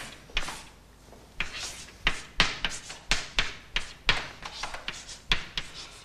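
Chalk on a blackboard: an irregular series of sharp taps and short scraping strokes as a word is crossed out and new words are written.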